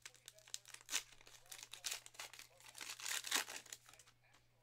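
A trading-card pack wrapper crinkling and tearing as it is pulled open by hand, in a run of irregular crackles, loudest about three seconds in.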